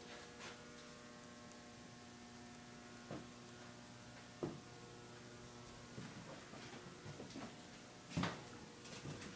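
Faint steady electrical hum with a few scattered clicks and knocks, about three seconds in, at four and a half seconds, around six seconds, and the loudest near eight seconds.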